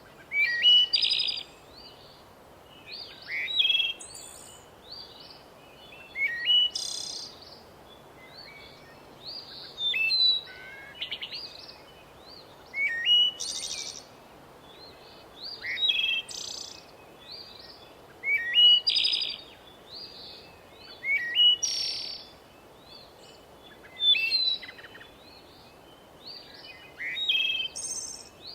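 Songbird singing: short phrases of quick chirps and trills, repeated about every three seconds, over a faint steady hiss.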